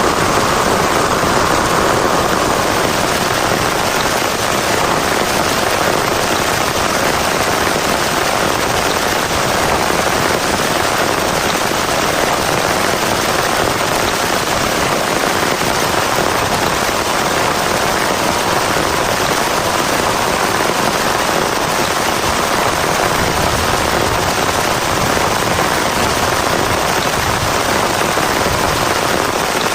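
Heavy rain pelting down close by: a loud, dense, steady patter of drops that does not let up.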